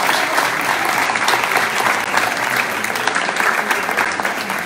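Audience applauding: a dense, steady wash of many hands clapping that eases off near the end.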